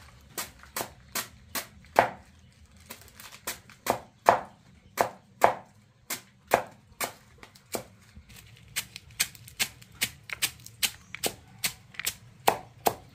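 Kitchen knife chopping a pile of leafy greens: a run of sharp chops, about two or three a second, with a short pause about eight seconds in.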